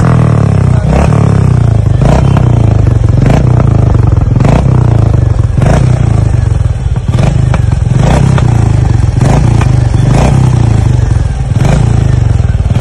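Royal Enfield Meteor 350's single-cylinder engine idling through an aftermarket silencer with a deep, steady thump. Short sharp pops from the exhaust come about once a second, which the owner calls small crackers that come loudest when the engine is revved.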